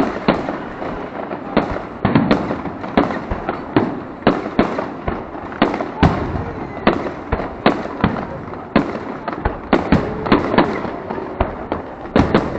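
New Year fireworks going off: a dense, irregular string of bangs and crackles, several a second, over a constant wash of noise.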